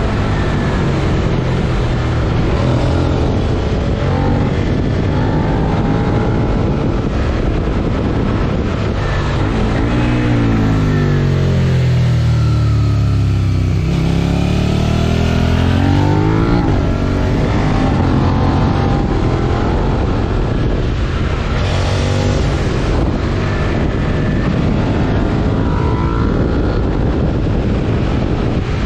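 Suzuki SV650 90° V-twin engine with a Yoshimura R77 exhaust running on a downhill ride, with wind noise. The revs rise and fall repeatedly, with one long drop from about ten seconds in, then the revs build back up over the next few seconds.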